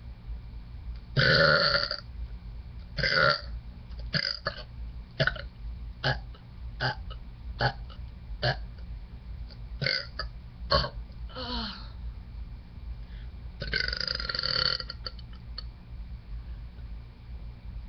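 A woman burping on purpose, over and over: two long burps, then a run of short, sharp burps about one a second, then another long burp near the end.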